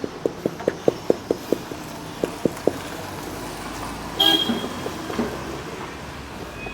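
Paper air filter element being tapped against a hard surface to shake the dust out: a quick run of light knocks, about four a second, over the first two and a half seconds. About four seconds in comes a short vehicle-horn toot.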